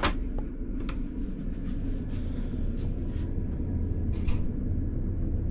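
Steady low rumble and hum of a ship's engines and ventilation heard inside a ferry cabin, with a few light knocks and clicks over it.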